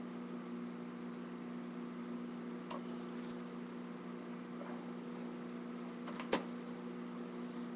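Steady low electrical hum, with a few light clicks and knocks as a vinyl record is handled and lifted off the turntable platter; the sharpest click comes about six seconds in.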